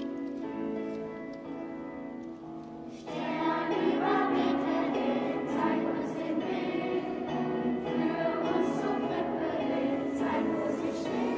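A group of young Sternsinger carol singers singing a song together over an instrumental accompaniment; the accompaniment plays alone with steady held notes at first, and the voices come in about three seconds in and carry on louder.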